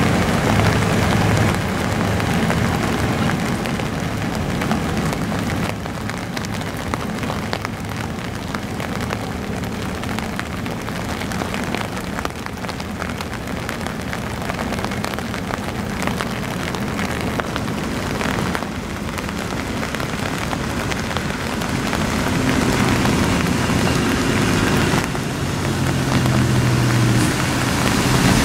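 Steady hiss of rain falling, with the low drone of tugboat engines underneath that grows louder over the last several seconds.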